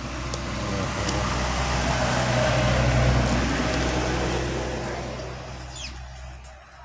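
A motor vehicle passing by outside, its engine hum and road noise growing louder to a peak about halfway through, then fading away.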